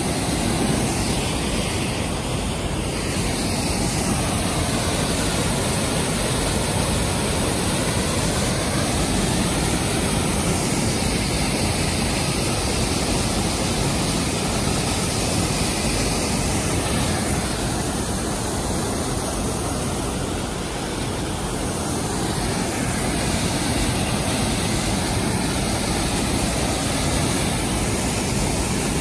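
Waterfall pouring over a sandstone ledge close by: a loud, steady rush of falling water.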